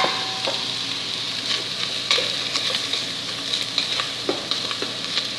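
Ground beef and diced vegetables frying with a steady sizzle in a stainless steel pot while a wooden spoon stirs them, with scattered scrapes and taps of the spoon against the pot.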